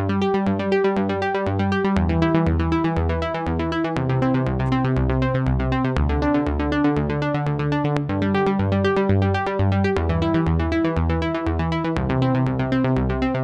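Electronic music with a steady beat, pulsing bass notes and synthesizer chords that change about every two seconds.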